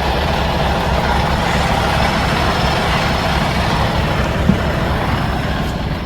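Semi-truck diesel engine idling steadily, with a single short tap about four and a half seconds in.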